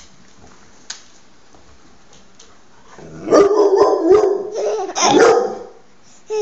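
A dog howling in long, wavering calls for about three seconds, starting about three seconds in, with a short falling yelp at the very end.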